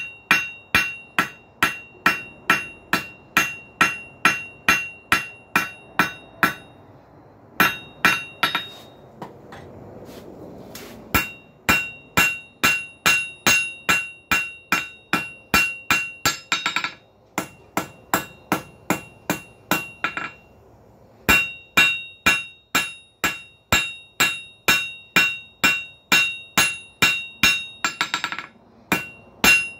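Hand hammer striking hot iron on an anvil in a steady rhythm of about two to three blows a second, each blow leaving the anvil ringing: drawing out the iron with a cross-peen hammer. The hammering stops briefly a few times, and two of the breaks are preceded by a quick flurry of lighter taps.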